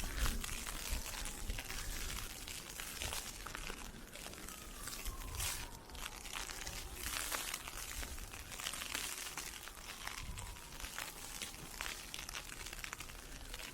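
Wind-blown ice pellets pattering irregularly on an umbrella, over footsteps crunching in snow.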